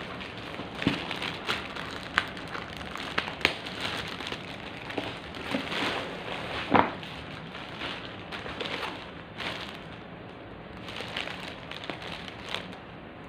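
Clear plastic wrapping crinkling and crackling as it is handled, in irregular sharp crackles, the loudest about seven seconds in and fewer near the end.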